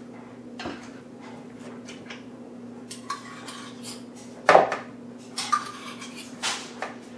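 Metal spoon clinking and scraping against a mixing bowl as sour cream is scooped out and knocked off into cream cheese. Irregular knocks, the loudest about four and a half seconds in.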